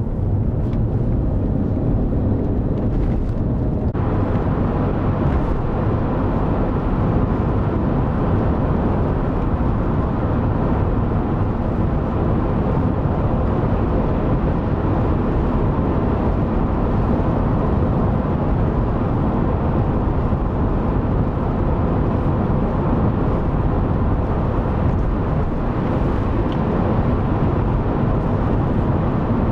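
Chevrolet Suburban driving at highway speed: a steady rumble of tyres and engine heard inside the cabin. The road noise turns brighter and hissier about four seconds in.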